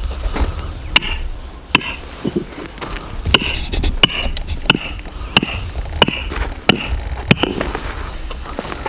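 Steps crunching and scuffing on dry, stony hillside ground as a boy hauls a donkey uphill on a rope: a steady run of sharp crunches, about one and a half a second, each trailing a short hiss. A low wind rumble lies underneath.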